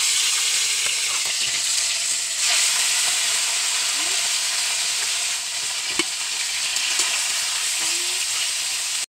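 Tilapia frying in hot oil in a wok: a loud, steady sizzle, with one sharp click about six seconds in. The sizzle cuts off suddenly near the end.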